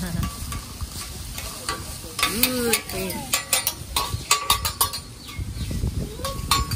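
Metal spatula and knife clacking and scraping on a hibachi flat-top griddle, with vegetables sizzling. The clacks come in quick runs from about two to five seconds in.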